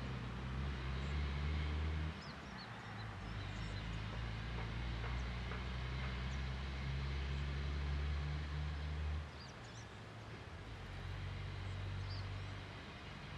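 Deep, steady hum of an ALCo WDM 3A diesel locomotive's engine, out of sight; it eases off a couple of seconds in, drops away about nine seconds in and picks up again shortly after. Faint bird chirps sound above it.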